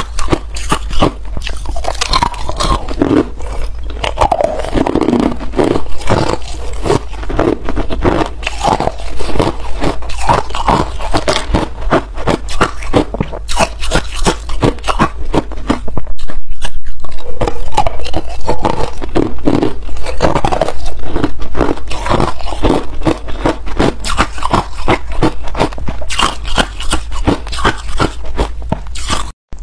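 Crushed white ice being bitten and chewed close to the microphone, a dense run of loud crunches that grows louder about halfway through.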